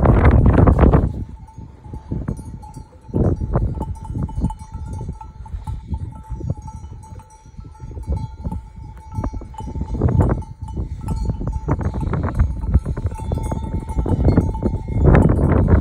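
Flock of sheep grazing, with bells among the flock clinking and clanking irregularly. Gusts of wind buffet the microphone, loudest just after the start and again near the end.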